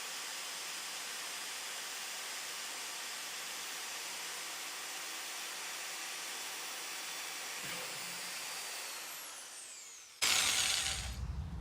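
Power drill running steadily with a small bit, drilling a pilot hole through the coated steel wall of a kettle grill, then released so its motor winds down with a falling whine about nine seconds in. A sudden loud knock follows about a second later.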